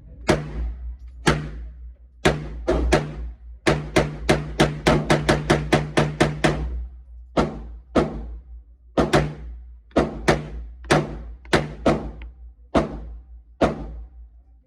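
Gunfire at a shooting range: about thirty semi-automatic shots at an uneven pace, mostly single shots about a second apart, with a quicker string of about four a second in the middle. Each shot rings on briefly over a steady low hum.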